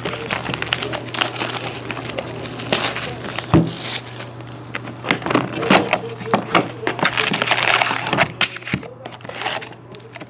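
Cellophane shrink-wrap torn off a cardboard box of trading card packs, then the lid lifted and the foil packs pulled out and stacked: a run of crinkling, tearing and light knocks.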